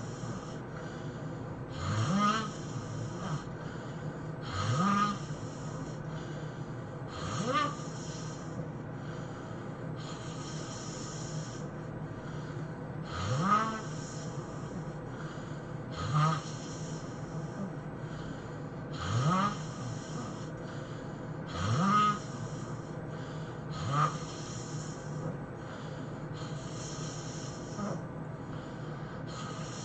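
A man snoring loudly and regularly, a snore every two to three seconds, each a short rattling snort that slides up in pitch with a hiss of breath on top.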